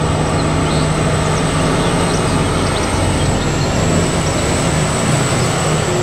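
BelAZ 75710 ultra-class mining dump truck driving by, its diesel-electric drive running steadily with heavy tyre and road noise. A thin, steady high-pitched whine sits above it.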